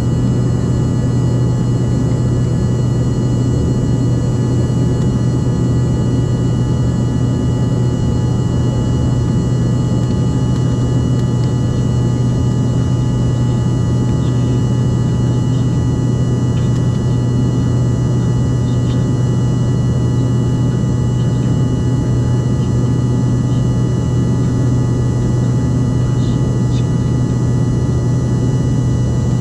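Turboprop airliner heard from inside the cabin while climbing after take-off: a loud, steady propeller drone with a strong low hum and a set of steady higher tones above it, over a rushing background.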